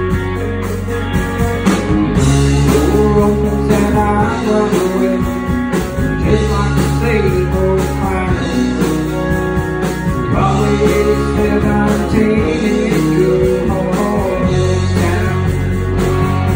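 Live country-rock band playing: electric guitars, bass and a drum kit, with a man singing lead through the PA.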